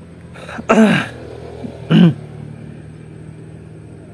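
Two short, wordless vocal sounds from a man, the first falling in pitch about a second in and a briefer one at about two seconds, over a steady low hum.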